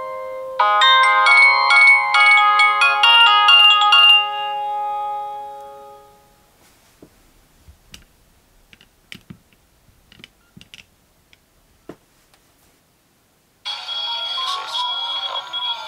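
Nokia N70 polyphonic ringtone: a quick melody of pitched notes for about four seconds that rings out and fades by about six seconds. A few faint clicks follow, then after a brief gap the next, denser electronic ringtone starts near the end.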